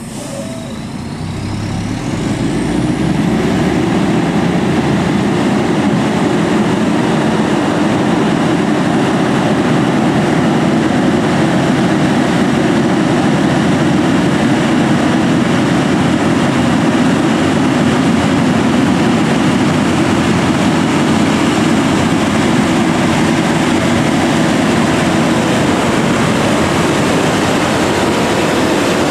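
Heavy truck engine working hard under load on a steep climb. It swells over the first few seconds to a loud, steady, rough noise.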